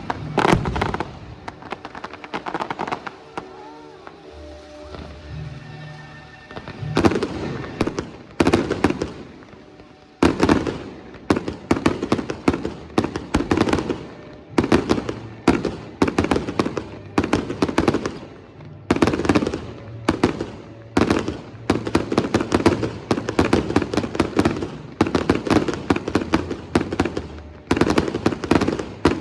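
Fireworks display: sharp shell bursts and crackles over music. Quieter at first, with the bangs coming thick and fast from about ten seconds in.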